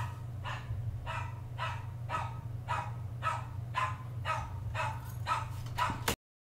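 A dog barking repeatedly, about two barks a second, over a steady low hum.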